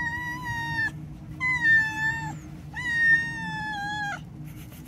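Domestic cat meowing three times: long, drawn-out meows held at a fairly even pitch, each dropping slightly as it ends, the last the longest.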